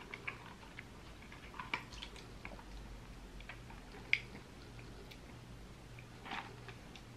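Faint mouth sounds of someone sipping a drink and chewing: scattered small clicks and smacks, the sharpest about four seconds in, over a low steady hum.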